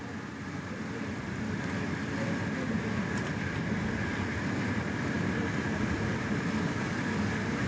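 Steady engine and wind noise from a camera motorcycle riding alongside a racing cyclist at speed, growing a little louder over the first few seconds.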